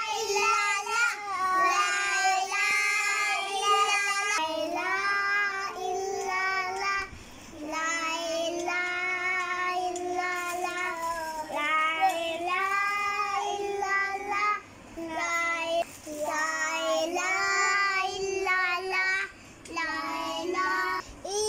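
A young girl singing a song unaccompanied, in phrases of long held notes with brief breaks between them.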